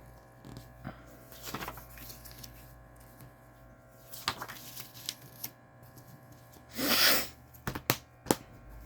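Blu-ray case and paper inserts being handled: soft rustling and scattered plastic clicks, with a louder rustle about seven seconds in and a few sharp clicks just after.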